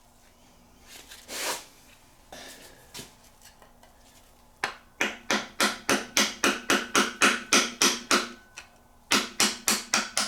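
Rapid, sharp hammer taps, about four or five a second, knocking a timing sprocket loose from its Woodruff-keyed shaft on a Ford 4.0L SOHC V6. They come in two runs in the second half, with a short pause between.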